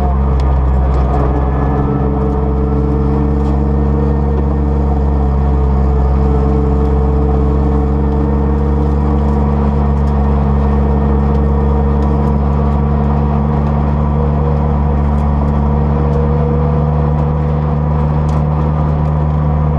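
Ford Fiesta HFHV rally car's engine idling steadily, heard from inside the cabin, its pitch holding level throughout.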